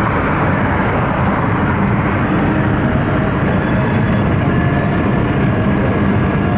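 Steady road and engine noise of a car at highway speed, heard from inside the cabin. A few faint steady whining tones come in about halfway through.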